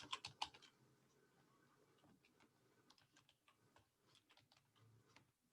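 Faint typing on a computer keyboard: a quick run of keystrokes at the start, then scattered fainter taps.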